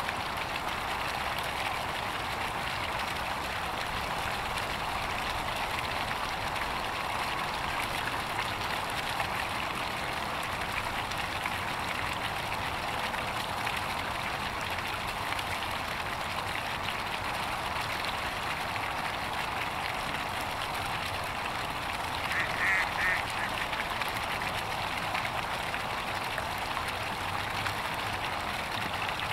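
A duck quacks in a brief quick run of calls about two-thirds of the way through, over a steady wash of background noise.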